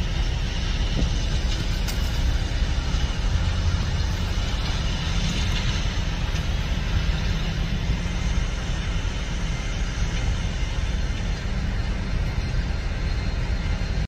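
John Deere tractor's diesel engine running steadily under load as it pulls a planter, heard as a continuous low rumble.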